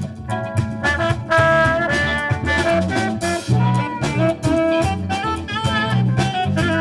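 A military band's jazz ensemble playing a swing-style number, with a brass section holding notes over drum kit and bass.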